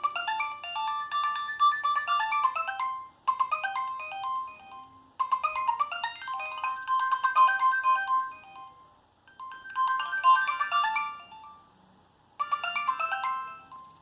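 Nokia 6225 mobile phone playing its preloaded polyphonic ringtones: short electronic melodies of quick, bright notes, several sounding together. The melody stops and starts again every few seconds.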